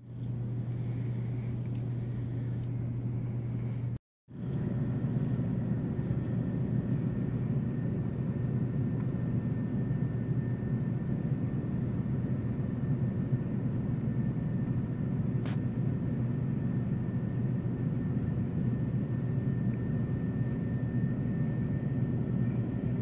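Water from an overflowing sink pouring down through the ceiling, a steady low rushing noise that drops out briefly about four seconds in.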